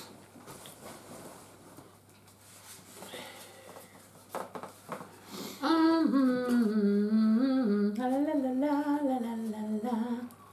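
A woman humming a short wavering tune for about four seconds, starting a little past halfway. Before it there are only a few faint clicks.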